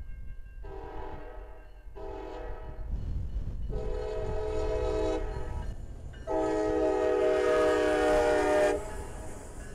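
CSX diesel locomotive's air horn sounding four blasts for a grade crossing, the last one the longest and loudest, over the low rumble of the passing train.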